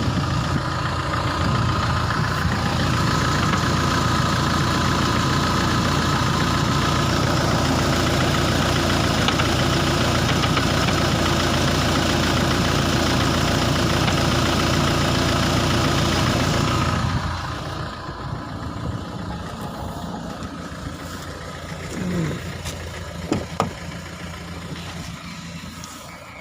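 Renault Laguna II engine running, with the knocking of a worn flywheel. About two-thirds of the way through, the engine sound falls away abruptly and much quieter noises follow.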